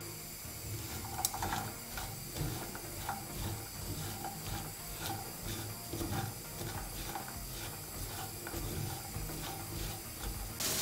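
Spatula stirring diced onion and sweet peppers in a frying pan, scraping and clicking about twice a second over a faint sizzle; the sizzle swells suddenly right at the end.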